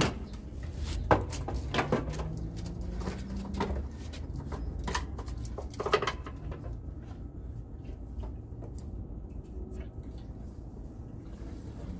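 Scattered clicks and knocks of a fuel can and its spout being handled and opened for refuelling, the sharpest about a second in and around six seconds, over a low steady rumble.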